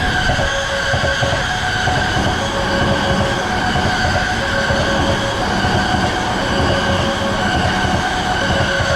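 An electric train passing a railroad crossing: a loud, steady rush of wheel and running noise with a high steady whine. Under it, the crossing warning bell rings in two alternating tones.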